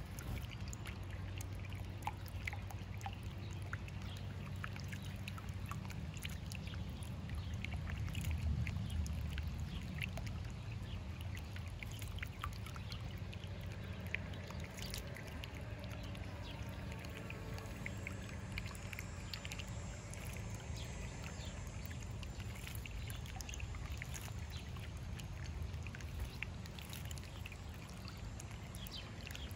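Small birdbath fountain trickling and bubbling steadily over stones, with a low steady hum beneath and many short ticks and splashes scattered through.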